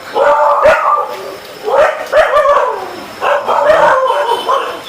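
Several stray dogs barking loudly in three bouts of rapid barks, each about a second long.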